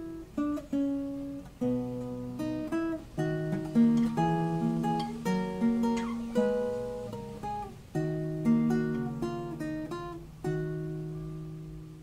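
Acoustic guitar music: plucked notes and strummed chords, each sounding sharply and dying away. A last chord comes about ten and a half seconds in and is left to ring out and fade.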